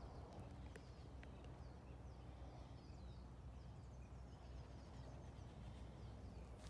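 Near silence outdoors: faint birds chirping, many short high calls, over a low steady background noise.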